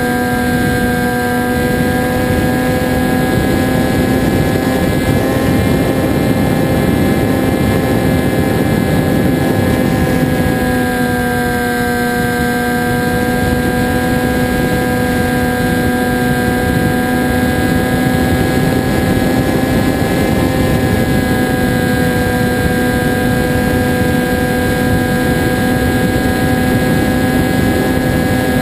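Onboard sound of a Zagi-type RC flying wing in flight: its motor and propeller drone steadily over rushing wind, the pitch dipping slightly twice.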